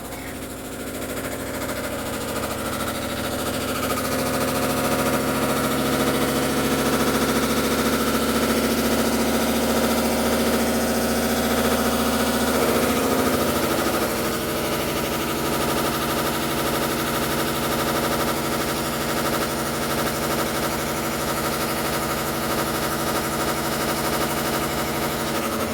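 Samsung washing machine running with a loud, steady mechanical hum of several held tones, a noise its owner takes for a fault. It grows louder over the first few seconds and shifts to a slightly different pitch about halfway through.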